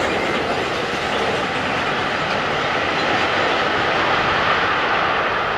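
An empty paper-pulp freight train rolling past, a steady loud noise of the wagons' wheels running on the rails.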